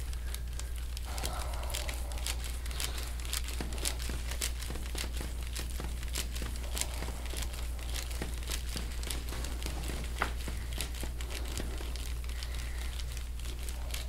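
Irregular dry crackling and clicking from a large muscle knot by the shoulder blade as a forearm presses and works over it, over a steady low hum.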